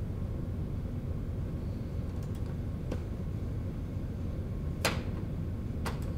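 Steady low hum with a few sharp clicks, the loudest a little before five seconds in: buttons being pressed on a soda vending machine.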